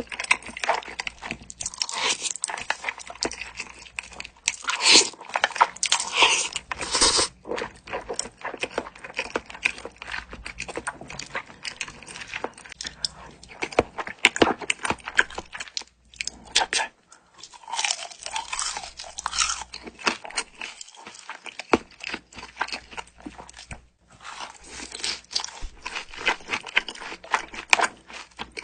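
Close-up crunching and chewing of crispy food: loud, irregular crackles of bites and chewing, pausing briefly twice.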